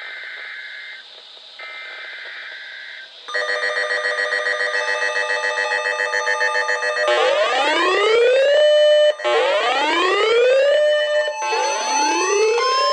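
NOAA weather radio receivers going off for an incoming warning: two short buzzy bursts of the alert's data header, then from about three seconds in a loud rapid pulsing alarm beep, joined from about seven seconds by rising whooping siren sweeps repeating every two seconds, with a steady warning tone coming in near the end.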